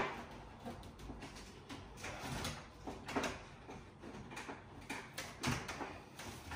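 Irregular knocks, clicks and scrapes of hands and plumbing fittings inside an under-sink kitchen cabinet, as a washer dryer's hoses are being connected. A sharp knock at the very start, then scraping and knocking about two, three and five and a half seconds in.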